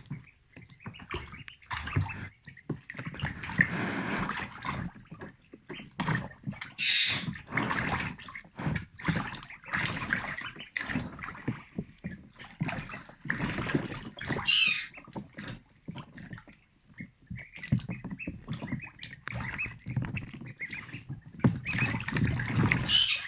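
Ducklings splashing and paddling hard in shallow bathwater, darting about in an irregular run of splashes with a few sharper, louder splashes.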